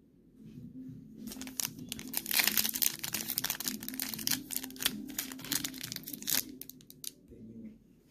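Foil Pokémon booster pack wrapper crinkling and crackling as it is handled, a dense run of crackles loudest two to three seconds in, dying away near the end.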